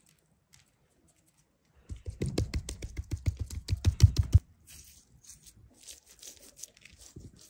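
Hands rubbing and patting spice into the scaly skin of a whole grass carp on a wooden board: a fast run of quick, sharp strokes starting about two seconds in and stopping abruptly just past halfway, then lighter scratching.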